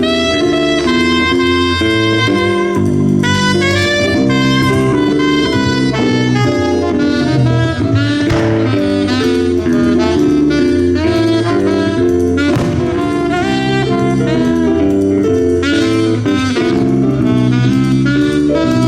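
Live jazz band playing, a lead melody over a stepping bass line.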